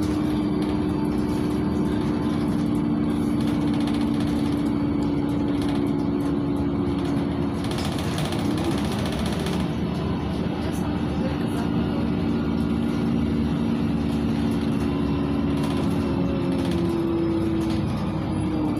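Inside the cabin of a LiAZ 5292.67 city bus running on compressed natural gas: the YaMZ-53624 engine and ZF automatic drivetrain drone on the move with a steady whining tone over road noise. The pitch dips briefly about halfway through and falls near the end as the bus slows.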